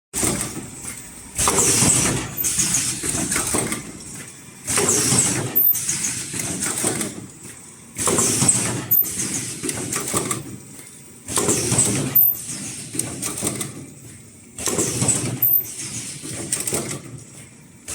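Automatic cup-shaped mask headband welding machine running through its cycle, repeating about every three seconds. Each cycle opens with a sudden burst of mechanical noise and a high-pitched whine, then dies down before the next.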